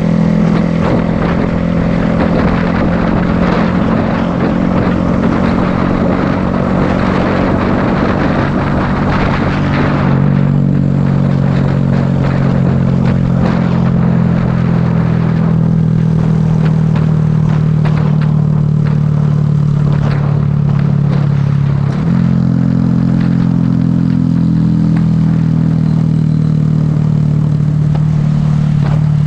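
Motorcycle engine running steadily at road speed, heard from the bike itself, with wind and road noise rushing over the microphone that is heaviest in the first ten seconds. The engine note steps down about ten seconds in and steps up again about twenty-two seconds in.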